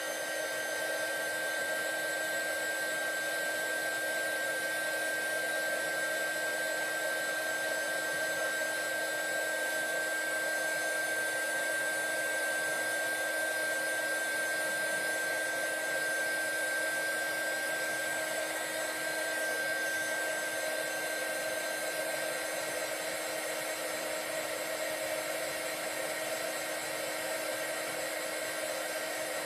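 Handheld craft heat gun running steadily, blowing hot air onto an inked paper tag: an even rush of air with a steady motor whine.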